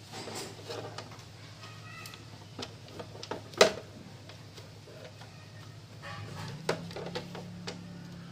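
Plastic clicks and knocks from handling a mixer grinder's open base and its overload reset switch as the switch is fitted back in, with one sharp click about three and a half seconds in and a few lighter ones near the end.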